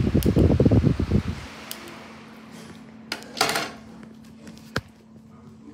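Lasko 18-inch Cyclone pedestal fan's airflow rumbling on the microphone for about the first second and a half, then dropping away abruptly and leaving a low steady hum. A brief rustle comes about three and a half seconds in, and a single sharp click comes near the end.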